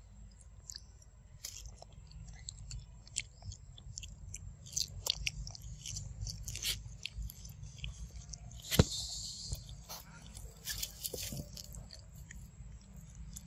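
Irregular wet clicking and smacking mouth sounds of macaques feeding close to the microphone, with one sharper click about nine seconds in.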